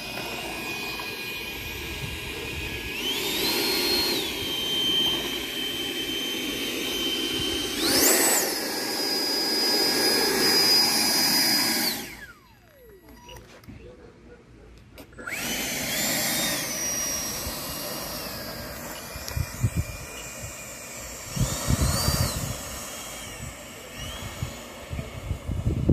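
Electric ducted fan of an FMS 80 mm Dassault Rafale RC jet whining as the model taxis. The pitch steps up with the throttle about three seconds in and again at eight seconds. The fan cuts out for about three seconds midway, spools up again, and gives a couple of short throttle blips near the end.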